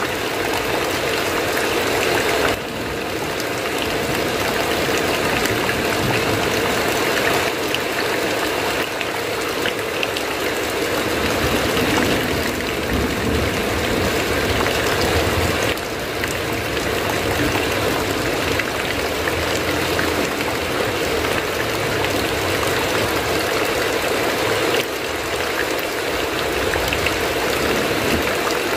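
Heavy rain pouring steadily: a dense, even hiss of falling water.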